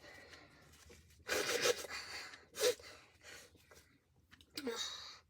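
Breathy noises from a person: a long breathy puff, then a short vocal sound, and a brief vocal sound rising in pitch near the end.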